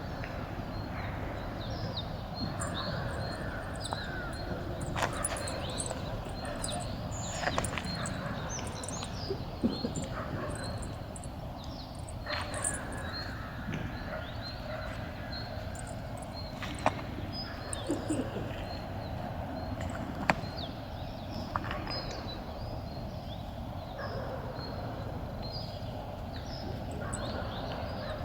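Birds chirping and crows cawing over a steady outdoor background, with a few irregular sharp knocks; no engine runs.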